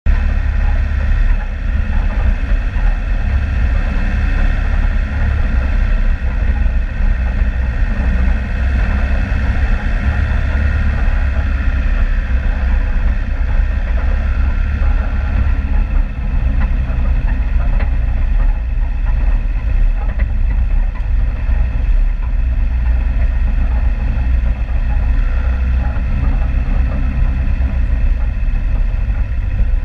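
Four-wheel-drive vehicle's engine running steadily with a heavy low rumble, as it drives a rough bush track.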